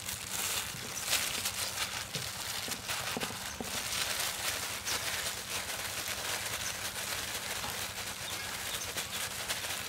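A hand in a thin plastic glove squeezing and kneading mashed potato and shredded chicken in a steel bowl: wet squishing and glove crinkling, heard as a dense run of small irregular clicks.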